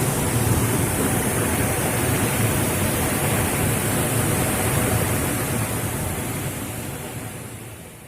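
Waterfall roaring: a steady, dense rush of falling water that fades away over the last few seconds.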